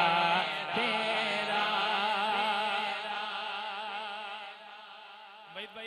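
A man's voice singing a naat into a microphone, holding the last syllable of a line with a wavering pitch that slowly fades away over the last few seconds.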